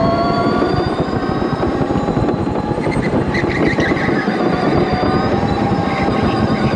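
Electric go-kart heard onboard: the motor's steady whine, slowly rising in pitch as the kart picks up speed, over a dense rumble of the kart on the track.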